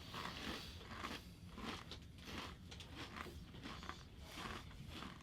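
Ruffles ridged potato chips being chewed with the mouth close to the microphone: a run of soft crunches, about two or three a second.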